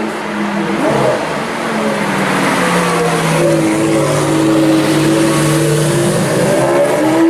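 Supercar engine running at low revs, its note holding fairly steady and then rising near the end.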